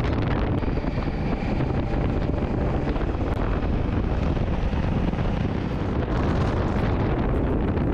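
Honda Africa Twin motorcycle riding two-up at road speed, its parallel-twin engine running steadily under constant wind noise on the camera's microphone.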